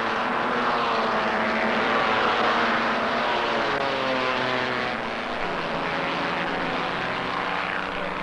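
A motor vehicle engine droning steadily, its pitch rising slightly and then sinking slowly through the middle of the stretch, a little quieter in the last few seconds.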